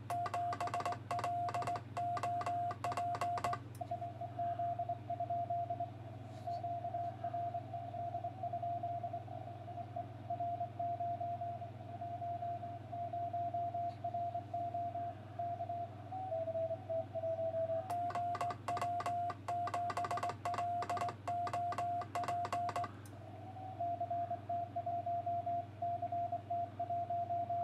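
Morse code (CW) from an amateur radio transceiver: a tone of about 700 Hz keyed in dots and dashes. Twice, for a few seconds at the start and again about 18 seconds in, the code comes with sharp clicks from a hand-worked Morse key as the operator sends his own call. A low hum runs underneath.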